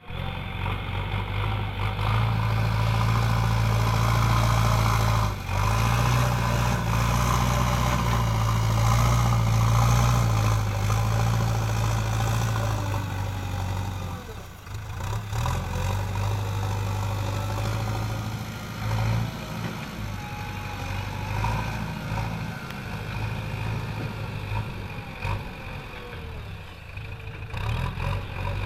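JCB 3DX backhoe loader's diesel engine running as it works, with its level rising and falling. It is loudest in the first half, dips briefly about halfway through, then runs on lower and more unevenly.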